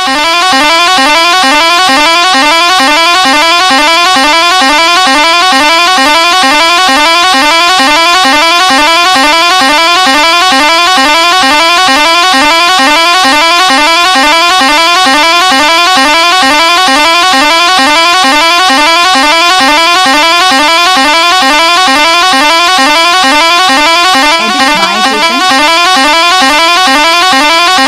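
A bus's musical pressure horn blowing without a break, loud, a rising note repeating about twice a second.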